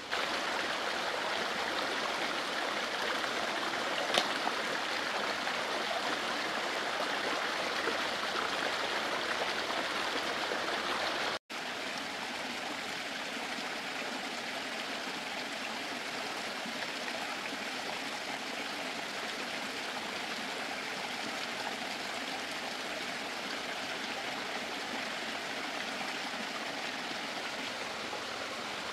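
Steady rushing of running water, with one sharp click about four seconds in. The sound drops out briefly about eleven seconds in and comes back slightly quieter.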